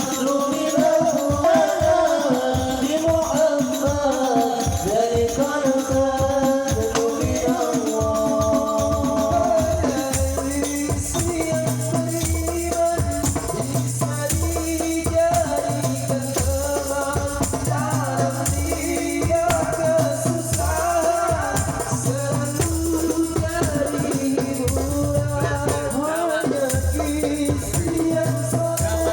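An Islamic devotional song (sholawat) played loud over a sound system: a singing voice with music and shaker-like rattle percussion. About ten seconds in, a deep steady bass beat comes in.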